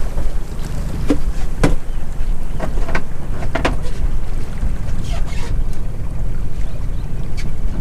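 Small boat's outboard motor running under way, a steady low rumble mixed with wind on the microphone. Irregular sharp slaps and knocks come every second or so in the first few seconds and more sparsely after, as the hull meets the chop.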